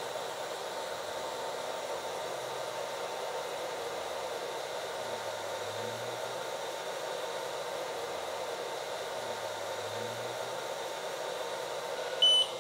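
xTool F1 laser engraver running an engraving job: a steady fan-like whir. A short beep comes near the end.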